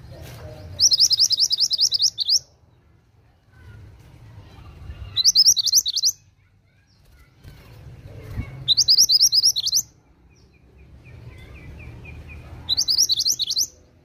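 A caged mantenan (kuniran) songbird singing: four bursts of rapid, high-pitched trilled notes, each about a second and a half long and a few seconds apart.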